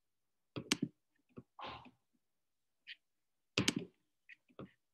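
A few scattered soft clicks and thumps with a brief rustle near two seconds in, the loudest knock about three and a half seconds in: handling noise after the talking has stopped.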